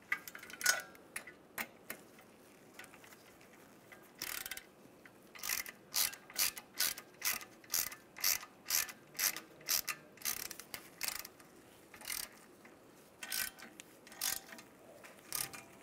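Hand ratchet with a small socket clicking as it snugs down the bolts of a brake rotor backing plate: scattered clicks at first, then a steady run of short bursts about three a second, then a few more near the end.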